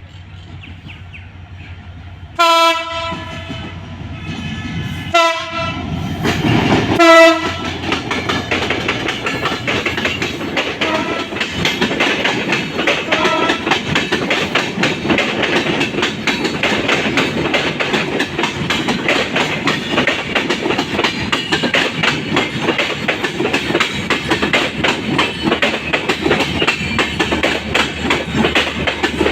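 Train horn sounding three short blasts, followed by the Sundarbans Express's LHB coaches rolling past close by, their wheels clattering steadily over the rail joints.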